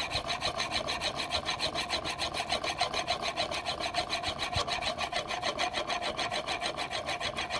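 Steel plane iron held in a honing guide, rubbed back and forth on an extra-extra-fine diamond sharpening plate in a quick, even rhythm of several strokes a second: a rasping scrape as the bevel is honed under even pressure.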